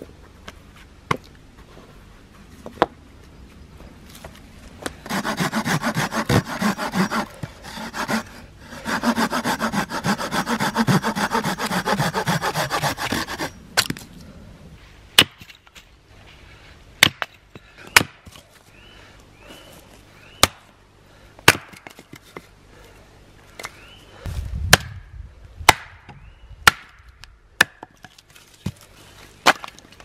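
A hand saw cutting wood in two runs of quick rasping strokes. Then a small axe splitting wood on a chopping stump: about a dozen sharp single chops, one of them about two-thirds through landing with a heavy thud.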